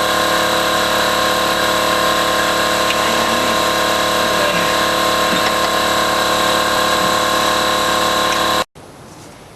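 A machine runs steadily, a constant hum with several fixed tones and a noisy hiss. It cuts off abruptly near the end, leaving a much quieter background.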